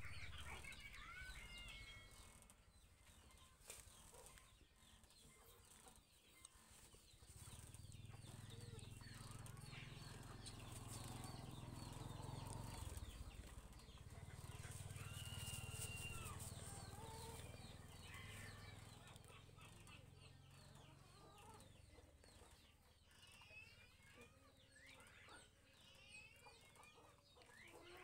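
Faint chickens clucking and calling in the background, with a low hum that sets in about 7 seconds in and fades out about 21 seconds in.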